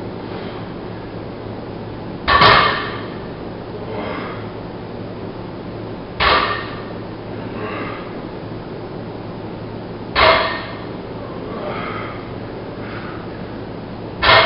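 Loaded barbell with iron plates set down on a rubber gym floor between deadlift reps: four short clangs with a brief metallic ring, about four seconds apart.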